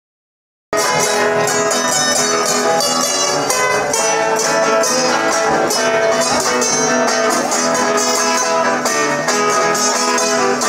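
Viola caipira and acoustic guitar playing an instrumental intro together, picked notes over strummed chords. The music starts suddenly under a second in.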